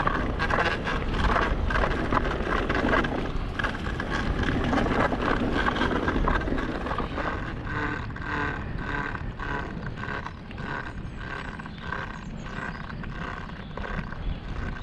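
Orbea Rise H15 electric mountain bike being ridden on a trail: tyre and trail noise with rattling from the bike and wind on the helmet-camera microphone, easing off about halfway through as the bike slows.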